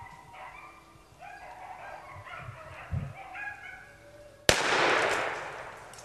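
Pack of beagles baying as they run a cottontail rabbit's track, then a single shotgun shot about four and a half seconds in: sudden and much the loudest sound, fading away over about a second and a half.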